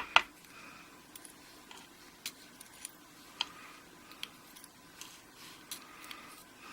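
Small scattered clicks and ticks as the springs and pins are picked out of the padlock cylinder's pin chambers, with two sharper clicks right at the start.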